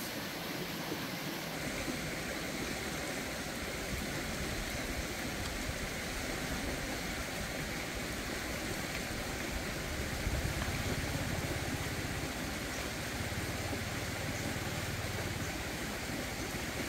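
Steady rushing outdoor background noise, with a deeper low rumble added from about ten seconds in until shortly before the end.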